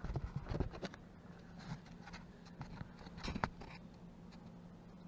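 Handling noise of light taps, clicks and scrapes on a countertop as a small camera and a plastic cup are moved about. A cluster of clicks comes in the first second and another about three and a half seconds in.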